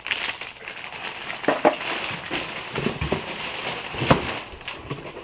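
Clear plastic wrapping on complete skateboards crinkling as the boards are handled and lifted from the box, with a few knocks about one and a half, three and four seconds in.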